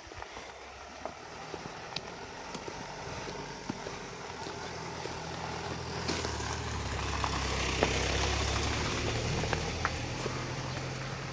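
A car engine idling, a low steady hum that grows louder and then fades as it is walked past, with scattered light clicks over it.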